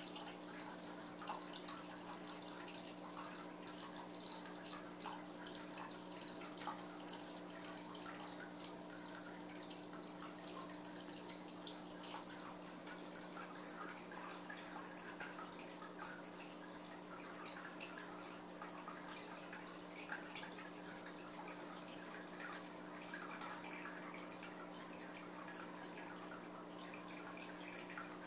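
Water in an aquarium tank dripping and trickling in fine, irregular drips, over a steady low hum.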